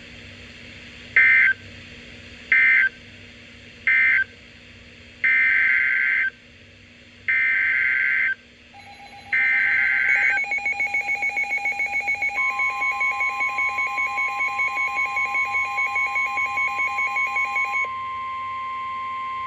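Emergency Alert System SAME data bursts: three short warbling bursts (the end-of-message code closing the previous warning), then three longer bursts of about a second each (the header of the next alert). They are followed by a long, steady weather-radio alert tone with a rapid beeping pulse laid over it for most of its length, the pulsing stopping near the end.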